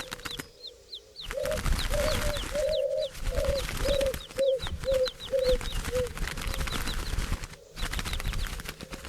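Birds calling: a run of about nine short, low calls, roughly two a second, fading out about six seconds in, over quick high chirps from small birds and bursts of wing flapping.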